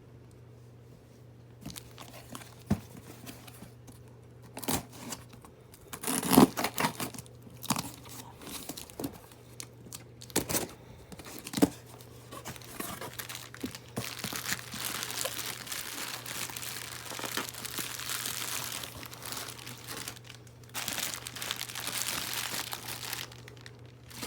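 Packaging being torn open and crinkled by hand around a Blu-ray case. Scattered sharp crackles and clicks come first, then long spells of continuous crinkling and tearing in the second half. A faint low hum runs underneath.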